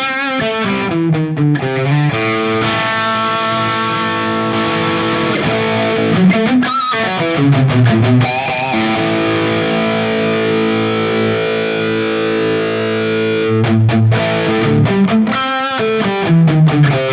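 Distorted high-gain electric guitar played through a Valeton GP-200 modeler, set to its Super Overdrive pedal model into the UK800 (Marshall JCM800-style) amp model. Quick runs open and close the passage, around long held chords and notes with string bends and vibrato.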